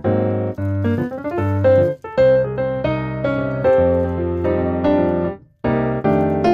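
Background music: a piano-like keyboard playing short rhythmic chords and melody notes, breaking off briefly near the end before starting again.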